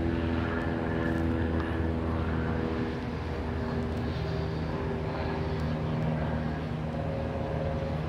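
Steady engine drone with a low hum, its pitch lines shifting slightly about three seconds in.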